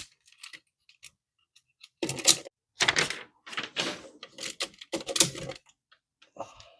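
Hard plastic parts of a 1994 Bandai Red Dragon Thunderzord toy clicking and rattling as they are handled and moved into place. There are a few sharp clicks, then a busy run of knocks and rattles in the middle.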